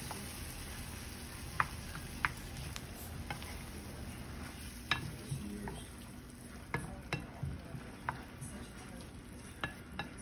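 A spoon stirring sliced vegetables through simmering coconut curry sauce in a frying pan: a steady low hiss from the hot pan, broken by about a dozen light, irregular clicks and scrapes of the spoon against the pan.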